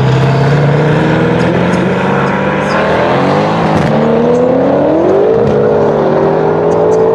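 Two cars accelerating hard down a drag strip side by side: a Brabus 800-tuned Mercedes-AMG C63 S 4.0-litre twin-turbo V8 and a BMW. Their engine notes climb in pitch, drop at upshifts about four and five and a half seconds in, then climb again.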